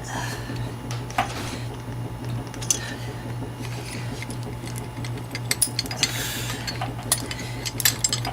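Flaring tool being worked on 3/8-inch copper oil-line tubing: scattered sharp metal clicks and taps, more frequent in the second half, over a steady low hum.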